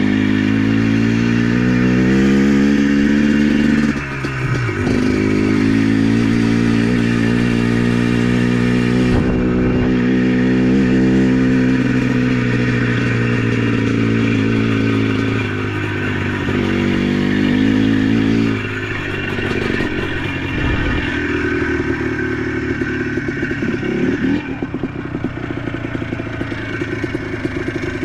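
ATV engine running under way, its pitch climbing and falling with the throttle and dropping sharply about four seconds in and again past the middle. The rider says the machine sounds weird and suspects a failing transmission.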